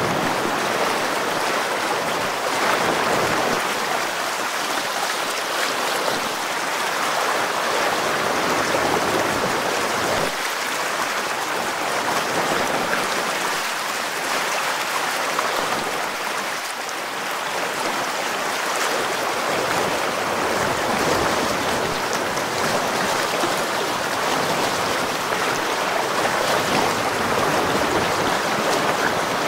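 Fast river water rushing and splashing steadily around a wading angler's legs.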